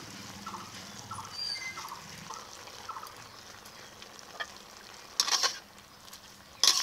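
Wooden spatula stirring boiled bottle gourd greens and freshly added poppy seed paste in a steaming brass kadai, over a faint simmer. There are two short, loud scraping strokes near the end.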